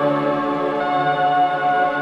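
Background music: slow ambient music of long held tones.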